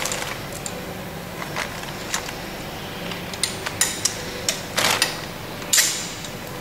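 Irregular sharp metallic clicks and clinks of a hand wrench and bolts as four mounting bolts are fitted and tightened on a utility vehicle's rear drivetrain. The loudest clinks come about four to six seconds in.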